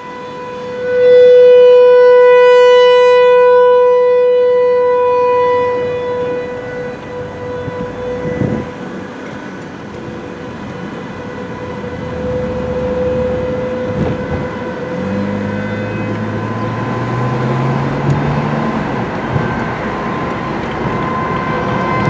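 Outdoor warning siren sounding a steady single tone, heard from inside a moving car. It is very loud for the first few seconds, then fades and grows again toward the end.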